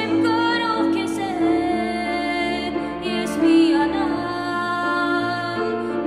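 Background music: a slow melody of long, wavering held notes over a sustained low bass note that changes pitch about four seconds in.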